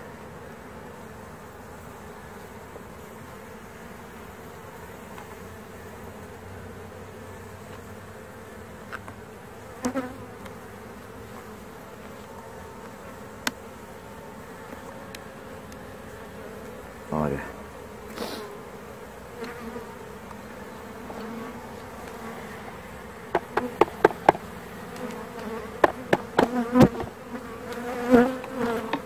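Honeybees buzzing steadily over an open hive, with scattered knocks and clicks of wooden frames and a hive tool being handled, coming thick and fast near the end.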